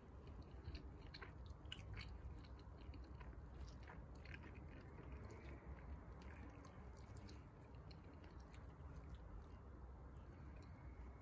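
Faint chewing of rice and mafé, a peanut-sauce stew: small wet clicks and smacks, thickest in the first few seconds and thinning out after.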